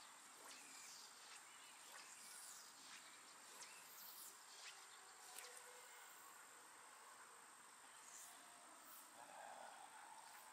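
Faint, steady high-pitched insect chorus, a single unbroken trill.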